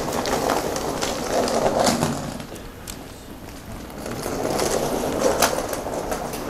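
Footsteps and shuffling of someone walking on a concrete floor with a handheld camera, with scattered sharp clicks; the sound dips for a second or so near the middle.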